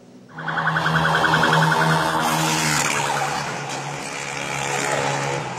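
Electronic siren sounding a fast-pulsing tone at a steady pitch over loud street noise, starting a moment in, picked up on a mobile phone's microphone.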